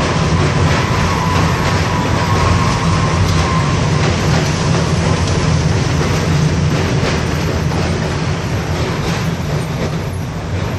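New York City subway train crossing the Williamsburg Bridge: a loud, steady rumble of wheels on the bridge track. A faint, high wheel squeal fades out after the first few seconds.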